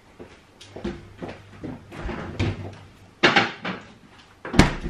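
Kitchen handling noises: short knocks and clatter of things being picked up and set down on the counter, then a kitchen door shutting with a sharp bang near the end.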